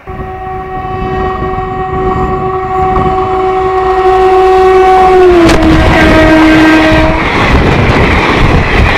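Electric locomotive horn sounding one long blast as the express train approaches at speed. The horn drops in pitch about five seconds in as the locomotive passes and stops about two seconds later, leaving the loud rush and clatter of the coaches going by close.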